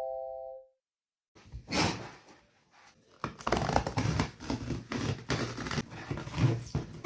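A doorbell chime dies away in the first half second. After a short silence comes a run of irregular rustling and tearing, packaging being handled and torn open.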